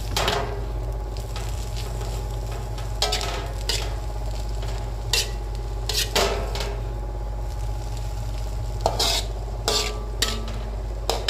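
Metal spatula scraping and clanking against a wok while stir-frying egg noodles and vegetables, in irregular strokes about ten times, over a steady sizzle of the frying food.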